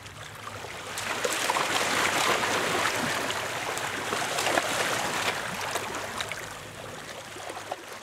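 Small waves on the open sea lapping and splashing: a steady wash full of fine crackles that swells about a second in and fades away near the end.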